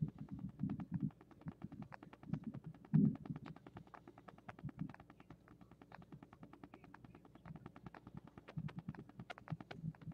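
Faint wind buffeting on the microphone of a thermal rifle scope, low gusts that rise and fall, the strongest about three seconds in, over a steady run of fine rapid ticks. No distinct gunshot stands out.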